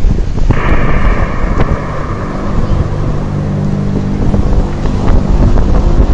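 Wind buffeting the microphone, with a drawn-out droning tone that sets in about half a second in and slowly fades, over a low steady hum.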